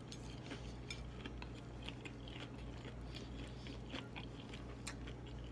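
A person chewing a fried seafood deviled egg close to the microphone: many small, irregular wet mouth clicks and smacks, over a low steady hum.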